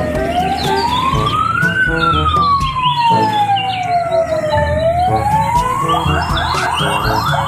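Ambulance siren: a slow wail rising for about two seconds, falling for about three, then rising again. About six seconds in it switches to a fast yelp, over the rumble of traffic.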